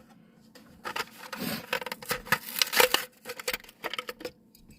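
Hot Wheels blister-card packaging being torn open by hand: a rapid run of crackling plastic, clicks and tearing card, starting about a second in and stopping shortly before the end.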